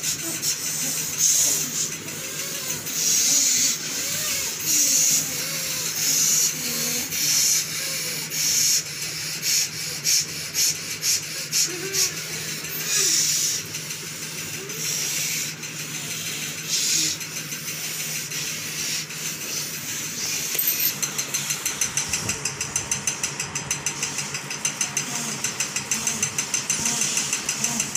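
Forceful breathing through the nose: heavy, hissing breaths about once a second, then from about three-quarters of the way in a fast, even run of sharp exhalations, several a second, as in a pranayama breathing exercise. A steady low hum sits beneath.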